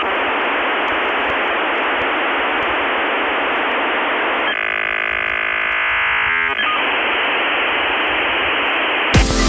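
Loud, steady hiss like radio static. About halfway through it turns for two seconds into a steady buzzing tone, then the hiss returns. Electronic music with a heavy beat starts just before the end.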